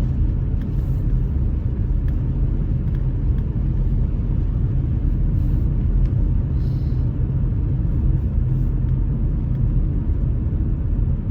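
Steady low rumble of a car's road and engine noise heard from inside the moving car's cabin.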